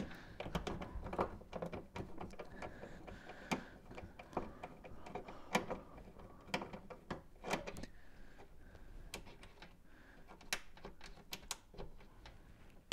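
Irregular small clicks and taps of a screwdriver turning out the ground-wire bolt inside an electric range's sheet-metal cabinet, metal tapping on metal.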